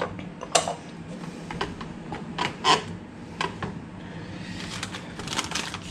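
Ceramic cups and lids being handled on a hotel tea tray: a scattering of light clinks and knocks, with a quick run of them near the end, over a steady low hum.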